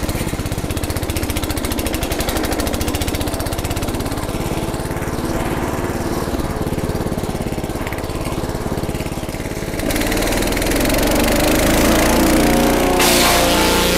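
Small engine driving a forage chopper, running steadily; about ten seconds in it speeds up and gets louder as the throttle is opened, with a brief rushing noise near the end.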